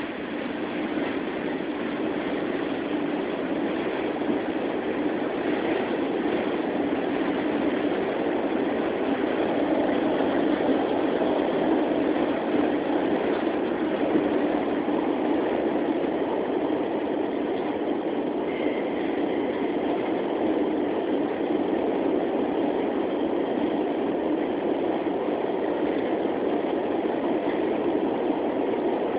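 New York City subway train running along elevated track, a steady rumble of wheels on rails heard from inside the car. A brief faint high tone sounds about two-thirds of the way through.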